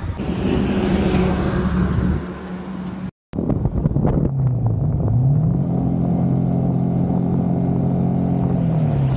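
Yamaha R15's single-cylinder engine running under way, cut by a brief dropout about three seconds in. After that the engine note rises as the bike accelerates, holds steady, then drops near the end.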